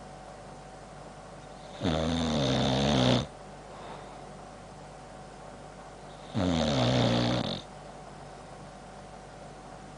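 Boxer dog snoring: two long snores, each over a second, about four and a half seconds apart, the pitch of each sliding down.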